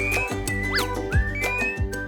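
Bright cartoon background music with a steady low beat and quick whistle-like slides up and down in pitch.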